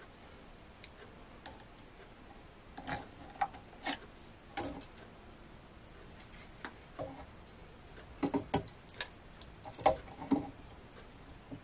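Steel combination square and pencil being handled on a spalted beech blank while marking out: scattered light clicks and knocks as the square is shifted and set against the wood, with soft rubbing of pencil on wood.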